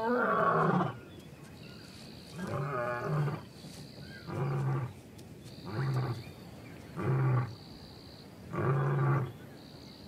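Lion roaring: a bout of deep, pitched calls repeated about every one and a half seconds, six in all, each under a second long. A faint high tone sounds in the gaps between the calls.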